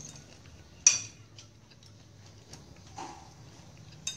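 Metal spoons clinking and scraping on ceramic plates while eating. A sharp ringing clink comes about a second in, small taps and scrapes follow, and another clink comes near the end.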